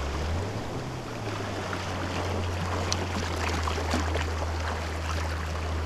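Shallow sea water lapping and splashing around bare feet wading over a pebbly black-sand shore, with a steady low hum underneath.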